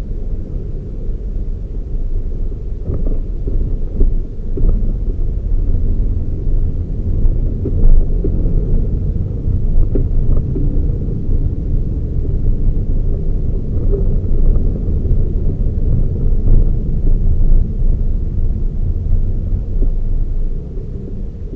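Toyota Raize small SUV being driven: a steady low rumble of engine and road noise, with a few light knocks along the way.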